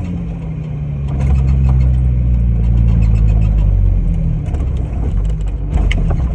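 Off-road 4x4's engine running steadily, its pitch stepping down about four seconds in, with scattered clicks and rattles over it.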